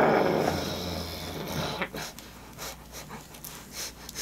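Chewing and mouth sounds from people eating sandwiches, with scattered clicks and heavy breathing. A loud breathy sound fades out over the first second or so.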